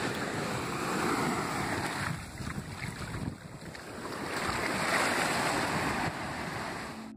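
Surf washing on a beach with wind buffeting the microphone: a steady rush that eases a little after about three seconds and swells again near five seconds.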